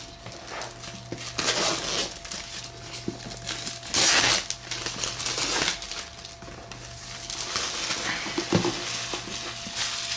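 Cardboard and plastic packaging of a power supply's retail box rustling and crinkling as it is opened and unpacked, with scattered handling clicks. The loudest burst of crinkling comes about four seconds in.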